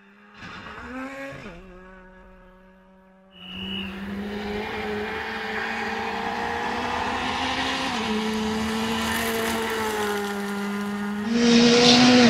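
Rally car engine running at high revs on a gravel stage, its note held fairly steady with small shifts in pitch, under a haze of tyre and gravel noise. A short rev comes about half a second in, and the sound jumps louder a little over three seconds in and again near the end.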